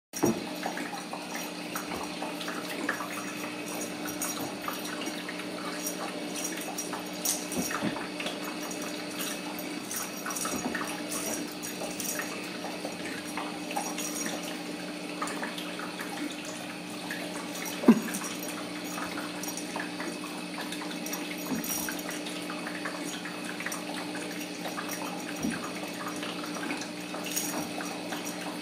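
Kittens playing on a rug and wooden floor: scattered light taps and scuffles of paws and a feather wand toy, with one sharper knock about two-thirds of the way through, over a steady room hum and hiss.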